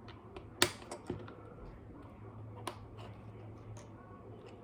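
Small plastic building-brick pieces clicking and tapping as they are handled and fitted: one sharp click a little over half a second in, a few lighter ones soon after, and another near the middle, over a faint steady low hum.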